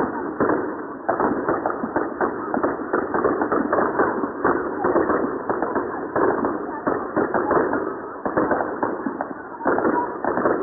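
Fireworks crackling and popping in a rapid, continuous barrage of many small bangs.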